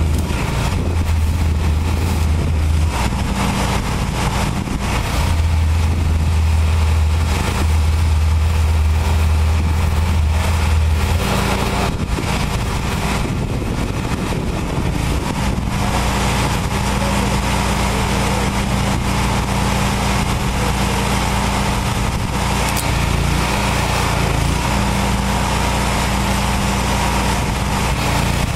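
Small-engine pressure washer running steadily, with the hiss of its high-pressure spray from the wand; the engine's note shifts several times.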